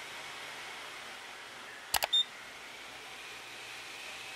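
A mouse-click sound effect about two seconds in: a quick cluster of sharp clicks with a brief high ping, over a faint steady hiss.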